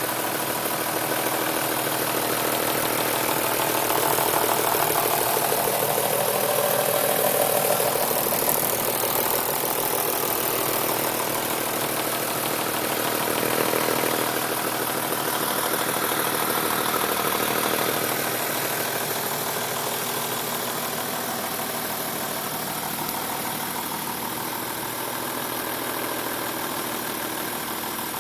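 BMW M3 3.2-litre straight-six engine running at idle, steady with a few slight swells in level, making an unusual noise that the owner suspects is a VANOS (variable valve timing) problem.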